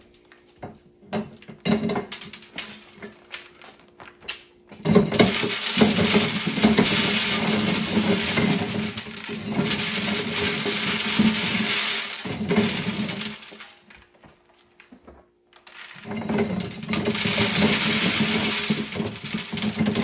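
Hand-cranked cast-iron corn sheller stripping kernels off ears of dried corn, the kernels rattling into a wooden box. Two spells of shelling: the first starts about five seconds in after a few scattered clicks, and the second follows a pause of about two seconds.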